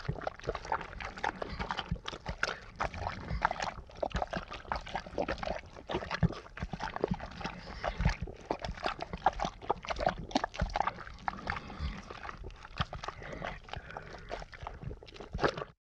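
A dog lapping and slurping, a dense irregular run of wet clicks and sloshes that stops abruptly near the end.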